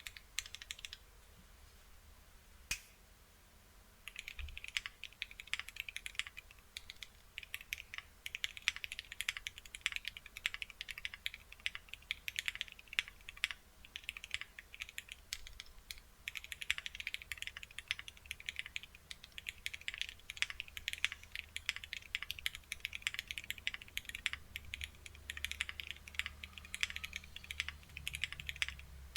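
Typing on a CannonKeys Bakeneko65 mechanical keyboard with JWK black linear switches in an FR4 plate: fast, continuous key clacks. A pause with one lone click comes first, and steady typing starts about four seconds in.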